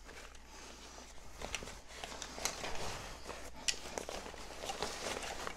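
A tripod being pushed into a fabric backpack pocket: the pack's fabric rustles and scrapes, with scattered small clicks and knocks from the tripod legs, busiest in the middle.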